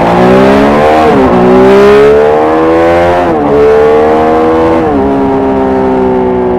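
Triumph Street Triple's inline three-cylinder engine accelerating hard. The pitch climbs and drops sharply three times, about 1, 3 and 5 seconds in, with each upshift, then holds a steady, slowly falling note.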